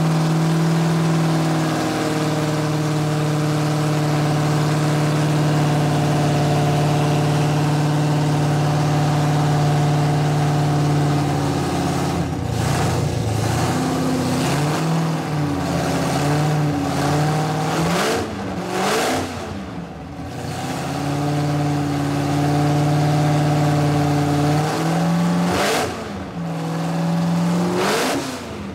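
Nitro-burning engine of a nostalgia drag roadster running while parked, a steady loud idle for the first dozen seconds. It is then blipped several times with rising and falling revs, settles back to the steady idle, and is blipped twice more near the end.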